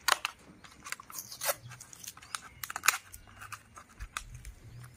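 A small candy packet's paper card and plastic wrapper crackling and tearing as it is picked and peeled open by hand, in a run of irregular sharp crackles, the loudest just after the start and about three seconds in.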